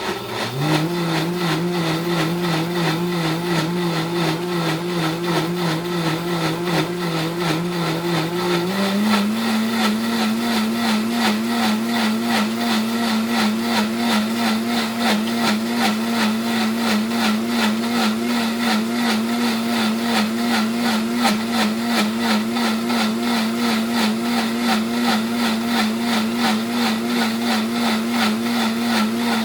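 Breville Bluicer blender motor spinning up and blending thick barbecue sauce. About nine seconds in it steps up to a higher speed, then runs steady.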